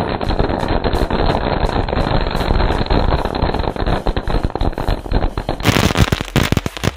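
Chitput crackling firecrackers going off in a dense, rapid crackle of pops while ground spinners burn. The crackle thins to scattered pops near the end.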